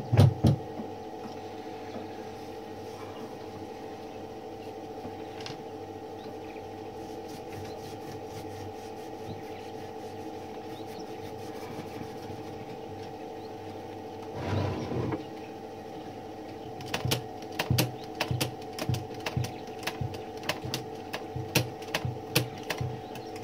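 Metal clicks and clacks of a 1912 Mercedes No. 3 typewriter's key and escapement mechanism being worked by hand with its upper carriage removed. There is a short clatter about two-thirds through, then a fast, irregular run of clicks near the end, over a steady background hum.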